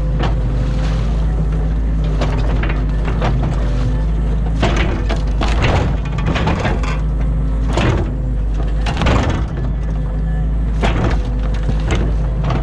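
New Holland Kobelco E50.2 excavator's diesel engine running steadily under load while its bucket digs silt and woody debris out of a drainage ditch, with repeated sharp cracks and crunches throughout.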